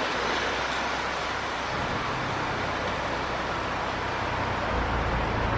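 Boeing 737 jet engines making a steady rushing noise as the airliner speeds along a wet runway, with a deeper rumble building near the end.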